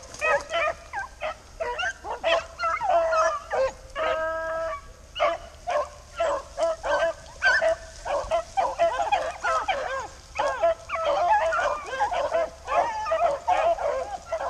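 A pack of rabbit hounds in full cry, many dogs yelping and baying over one another in quick, overlapping cries, with one long steady howl about four seconds in. The pack is on a rabbit's track, running the chase.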